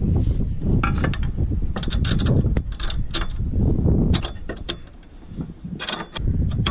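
Ratchet wrench clicking in several short runs as the bolts clamping a solar-panel mounting rail to a roof hook are tightened, over a low rumble that fades about two-thirds of the way through.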